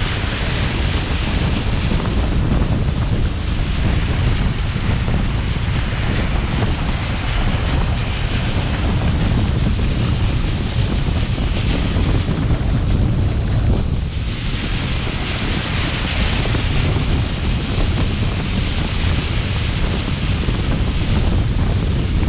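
Steady wind buffeting the microphone of a boat under way, with rushing water that swells and eases every few seconds.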